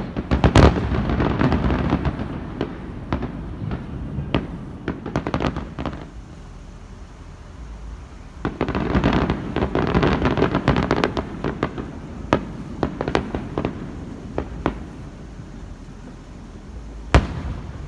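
Fireworks going off: a loud burst at the start followed by a fast run of crackling pops, a second crackling volley about halfway through, scattered pops, and a single sharp bang near the end.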